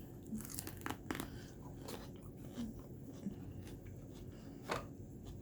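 A person chewing food close to the microphone, with a few sharp crunches and bites, the loudest near the end.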